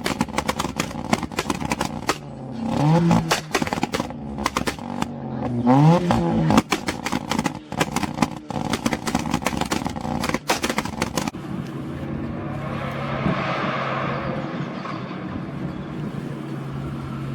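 A modified car's engine revved twice, each rev climbing and dropping quickly, with a rapid string of sharp exhaust pops and crackles around them. From about eleven seconds in the cracks stop and a steadier engine sound swells and fades.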